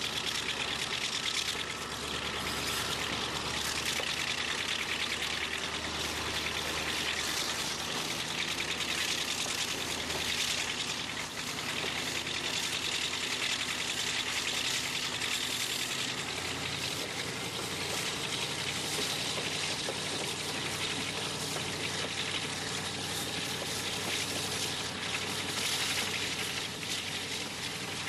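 Class 35 Hymek diesel-hydraulic locomotive D7076 hauling the train at speed, its Maybach V16 engine note faint under a steady rush of wind over the microphone held out of the coach window, with the rolling of the train on the track.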